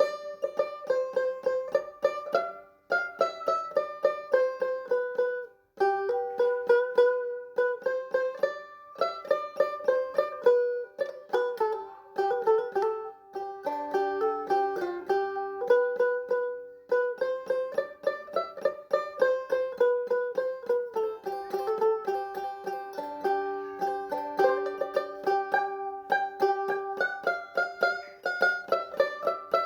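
Background music: a plucked string instrument playing a melody in quick, rapidly repeated picked notes.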